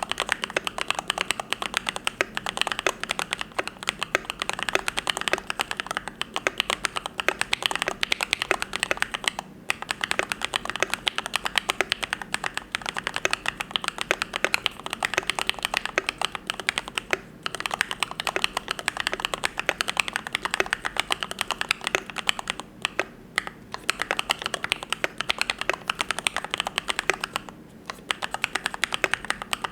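Continuous fast typing on a YMD75 V3 custom mechanical keyboard with lubed Gateron Yellow linear switches: a dense run of soft, rounded key strokes, broken by a few brief pauses.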